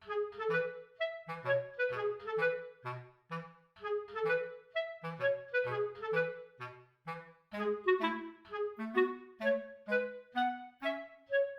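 Background music: a light, bouncy tune of short notes on a clarinet-like woodwind over a plucked bass line.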